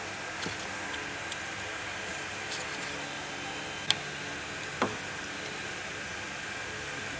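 Light metallic clicks from pliers working at the AC compressor's electronic control valve (ECV), two sharper ones about four and five seconds in, over a steady hiss with a faint high hum.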